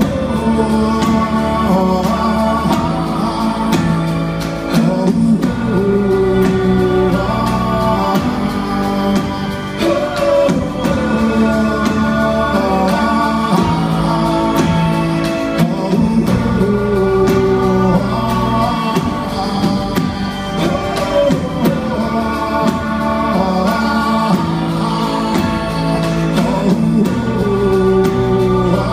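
Rock band playing live, with guitars, bass and drums, and several voices singing a repeating refrain over it.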